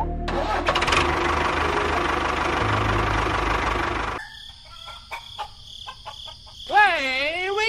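An engine starting up and running for about four seconds, then cutting off suddenly. Scattered clicks follow, and near the end a wavering, bending tone rises and falls.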